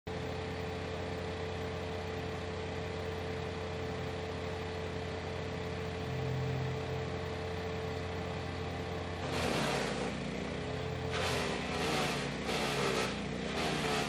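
Range Road RR400 wood chipper with its 13.5 hp Briggs & Stratton engine running steadily. About nine seconds in, a branch starts going through the chipper: several bursts of chipping noise, and the engine pitch dips under load with each one.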